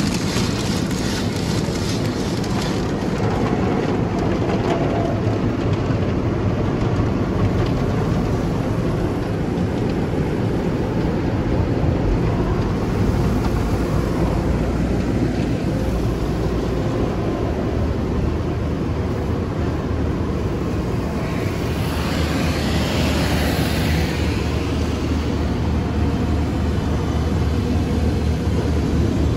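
Automatic tunnel car wash heard from inside the car: cloth brush strips and water spray working over the windshield and body, with the wash machinery and blowers making a steady rush over a deep rumble. A brighter hiss swells for a few seconds about two-thirds through.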